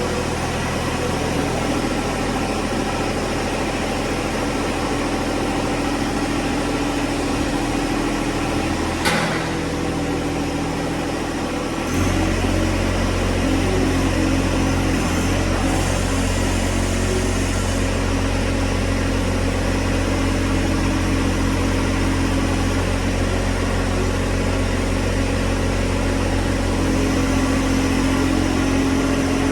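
John Deere 1025R compact tractor's three-cylinder diesel engine running steadily. There is a sharp clunk about nine seconds in. At about twelve seconds the engine sound changes to a deeper, slightly louder note, which then holds steady.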